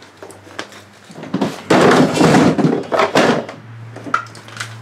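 Garage clutter being handled and shifted: a few knocks, then a loud scraping, rattling clatter lasting about two seconds. A steady low hum comes in after it.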